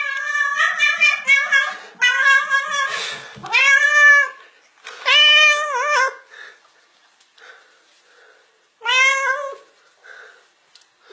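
Domestic cat meowing loudly and repeatedly: a crowded run of calls in the first few seconds, then three long drawn-out meows with wavering pitch, the last about nine seconds in. The cat is greeting its returning owner.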